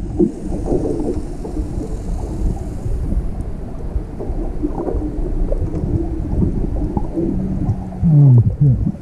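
Underwater sound through a submerged camera's housing: a steady low, muffled rumble of moving water. About eight seconds in, the loudest part, a few short low muffled sounds sliding up and down in pitch.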